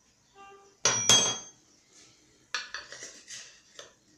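A metal spoon clinking against dishes: a short ringing clink, then a louder one about a second in, and a run of lighter knocks and scrapes in the second half.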